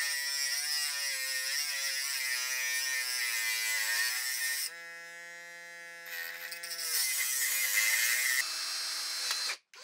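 Small handheld electric rotary tool with a cut-off disc running and cutting into a lamp socket; its whine wavers in pitch as the disc bites. About five seconds in it eases to a quieter steady whine, then cuts again and stops near the end.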